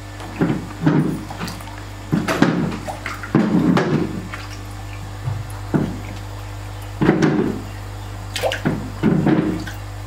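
Vietnam koi fish splashing at the surface of an aerated biofloc tank: about a dozen short, irregular splashes. Under them runs the steady low hum of the aeration system.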